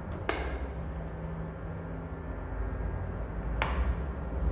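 Two sharp clicks about three seconds apart over a steady low hum.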